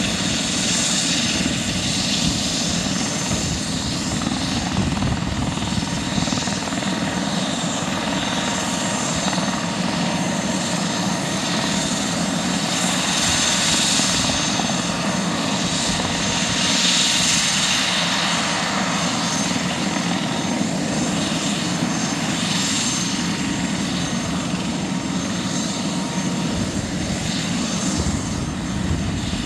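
Airbus H145 helicopter running on the ground with its main rotor turning: the steady whine of its twin turboshaft engines over the noise of the rotor, with slow swells in the higher hiss.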